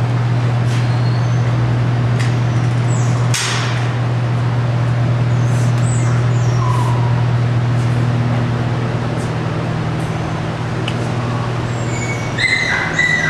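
A loud, steady low hum with scattered clicks and clanks from a chain-link kennel gate, the sharpest about three seconds in. Dogs yelp in the kennels near the end.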